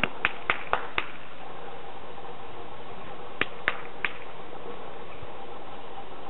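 Hand clapping: five sharp claps in about a second, then three more a couple of seconds later, over a steady outdoor hiss.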